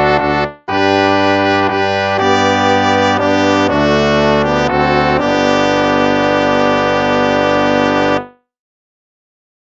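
Instrumental hymn music of sustained, held chords, with a brief break about half a second in; the music stops about eight seconds in, at the end of a hymn.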